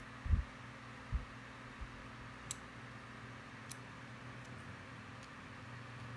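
Handling noise from a digital caliper: fingers working a small black plastic cap on the end of its body. Two soft bumps come in the first second or so, then a few faint, sharp plastic clicks.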